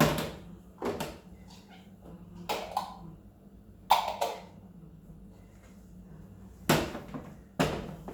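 Bottles and jars being handled and set down, a series of sharp clunks and knocks, about seven in eight seconds, over a low steady hum.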